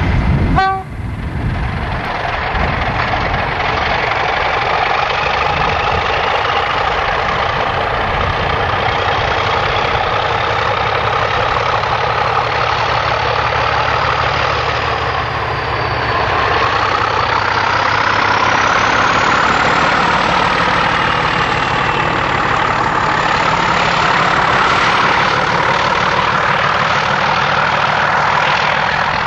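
Brush Class 31 diesel-electric locomotive's English Electric V12 engine working under load as it hauls its train past. A high whine above the engine rises in pitch, dips briefly around the middle, then climbs again.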